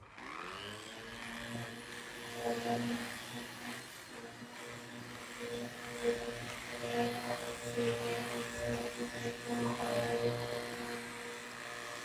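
Vorwerk Kobold vacuum cleaner with its upholstery nozzle, switched on and running over a fabric sofa: the motor's whine rises as it spins up at the start, then it settles into a steady hum whose loudness wavers as the nozzle is pushed back and forth.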